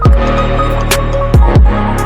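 Background music with electronic bass and a steady kick-drum beat.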